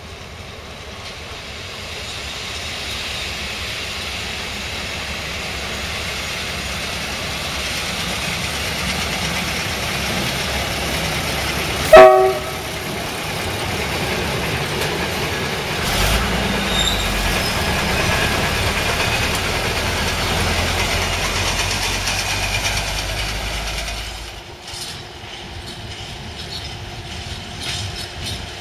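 A self-propelled track maintenance vehicle approaches and gives one short, loud horn blast about halfway through. Its engine then rumbles as it passes close by. Near the end a freight train runs in the distance.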